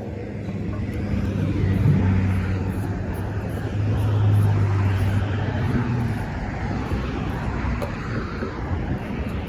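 Road traffic: cars passing, a low hum that swells twice, about two seconds and about four seconds in.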